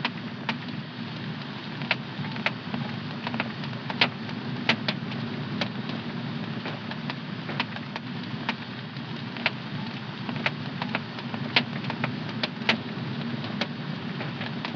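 Fire burning in a home fireplace, a steady low rush of flame with irregular sharp crackles and pops, a few of them louder.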